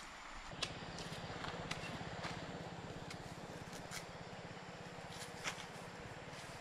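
A low steady hum starts about half a second in, with scattered light clicks and snaps as a fruit is peeled and cut with a knife.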